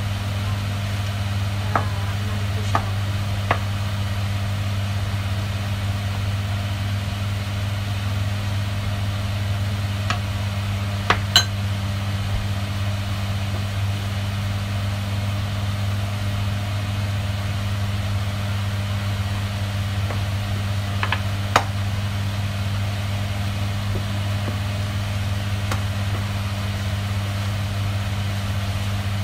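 A steady low hum, with a few light clinks and taps of a wooden spatula against a frying pan as chopped chicken is stirred, the sharpest pair about eleven seconds in.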